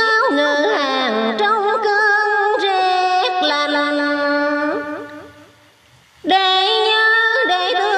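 Instrumental interlude of a Vietnamese song, with a melody of sliding, bending notes and no sung words. The music fades out about five seconds in, falls almost silent for a moment, then cuts back in abruptly at full level.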